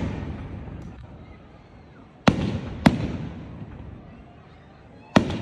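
Aerial firework shells bursting overhead: two sharp bangs about half a second apart a little after two seconds in, and another near the end, each followed by a rolling, fading rumble.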